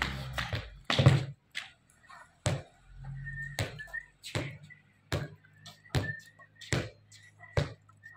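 Chopped onion being scraped out of a steel bowl into a wooden bowl: a run of sharp knocks and taps, about one a second, as the bowl and fingers strike the rims.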